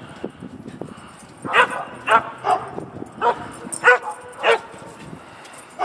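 A dog barking six times in quick succession, starting about one and a half seconds in, the barks roughly half a second apart.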